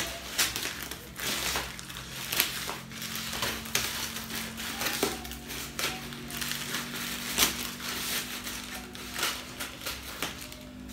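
Plastic courier bag being torn and crinkled open by hand: irregular rips and rustling crackles.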